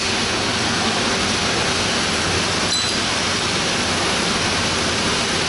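Steady, loud rushing background noise, an even hiss spread across the whole range with nothing standing out of it; a faint click about two and a half seconds in.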